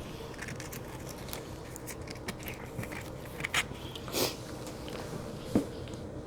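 Close-miked chewing and mouth sounds of a person eating, with scattered small clicks and a few louder smacks about three and a half, four and five and a half seconds in, over a low steady hum.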